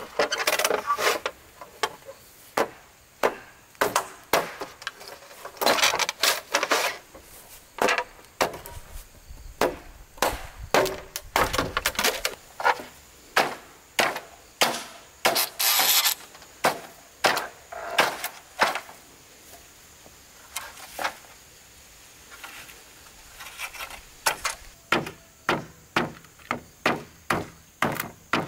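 Repeated sharp blows of a tool striking wood, irregularly spaced at about one to two a second and coming faster near the end.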